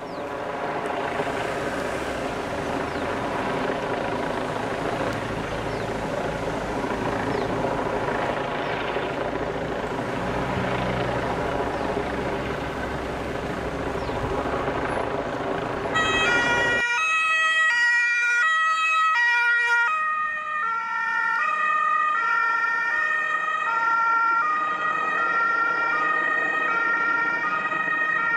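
German two-tone emergency sirens on ambulances and rescue vans driving past on an emergency run, mixed with engine and tyre noise. About 17 seconds in the sound changes abruptly to a cleaner, loud two-tone siren pattern that alternates between a high and a low pitch, with several sirens overlapping.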